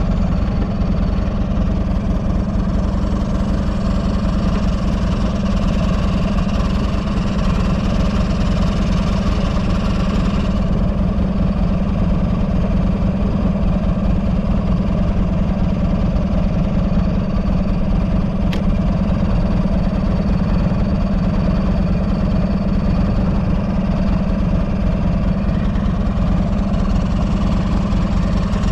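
2010 Buell XB12SS Lightning's air-cooled V-twin engine idling steadily, with no revving. A higher hiss in the mix drops away about ten seconds in. The engine runs without abnormal noises, as the seller describes it.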